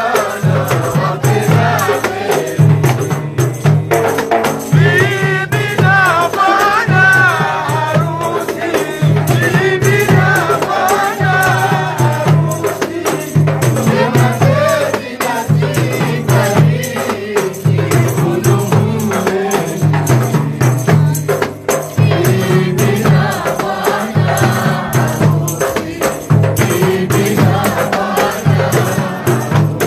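A crowd singing together in chorus over a steady low drum beat and rattling, shaker-like percussion.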